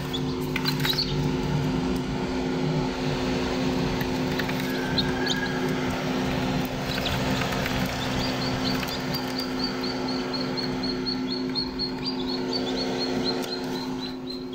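Young chicks peeping: a few scattered peeps at first, then a steady run of short high peeps, about three a second, from about eight seconds in. A steady low hum runs underneath.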